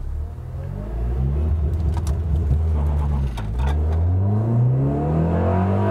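2009 Honda Accord's engine accelerating hard from a launch, its pitch climbing, then dropping briefly at an upshift about three seconds in before climbing again in the next gear.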